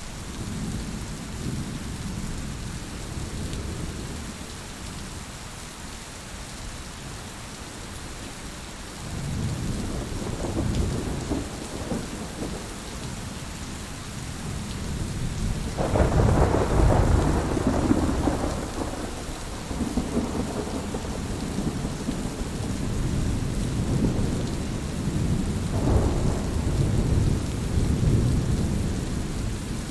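Steady rain falling, with rolling thunder. A low rumble builds about a third of the way in, a louder clap begins about halfway and rumbles away over a few seconds, and another comes near the end.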